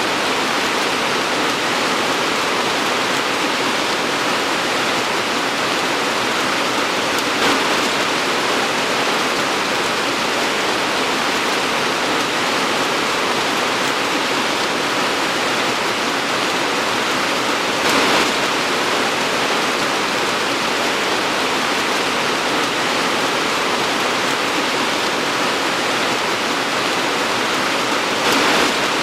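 Torrential rain falling steadily, a dense even hiss, with three brief louder swells: about a quarter of the way in, near the middle and near the end.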